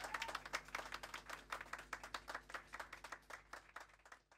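Applause from a crowd, many hands clapping irregularly, dying down steadily until it fades out at the very end.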